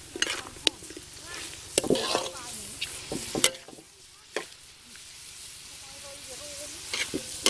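Metal spatula scraping and clanking irregularly against a steel wok as duck meat stir-fries, over a steady sizzle.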